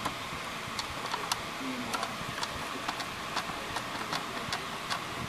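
Small irregular clicks, about two or three a second, of a screwdriver turning a screw out of a printer's sheet-metal frame, over a steady background noise.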